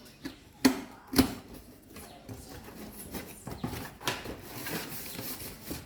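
Packaging of a newly unboxed kettle being handled: two sharp knocks in the first second and a half, then paper and plastic rustling.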